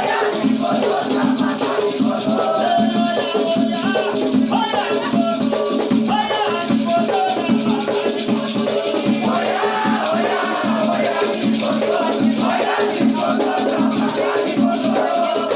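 Batuque ceremonial music: shaken rattles keeping a dense, steady rhythm under voices singing.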